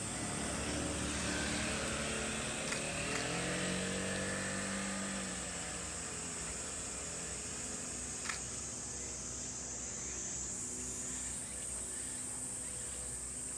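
Insects droning steadily at a high pitch, with a motor vehicle's engine hum rising and then holding steady over the first five seconds or so before fading. Two short clicks come about 3 and 8 seconds in.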